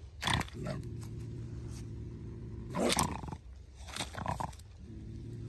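A bobcat pinned with a catch pole, growling low and steadily, with three sharp hissing bursts: a cornered cat's defensive sounds.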